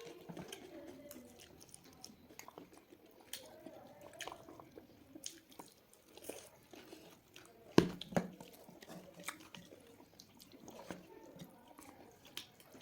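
A person chewing and biting into cooked chicken close to the microphone: scattered wet clicks and smacks throughout, with two loud sharp knocks about eight seconds in.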